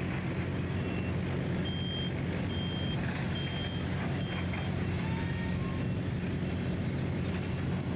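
Heavy truck engines running with a steady low rumble, and a vehicle's reversing alarm beeping about once a second, four clear beeps in the middle.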